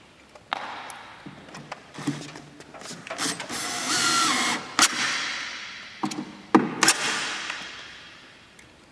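Cordless drill driving wood screws to fasten a woofer into a plywood horn speaker cabinet, in several short runs with a few clicks between, the motor whine dropping as a screw seats. Each run echoes and fades slowly.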